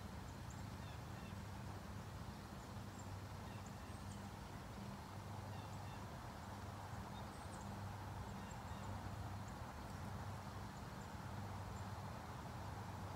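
Faint, steady low hum under quiet open-air background, with scattered faint, short high bird chirps.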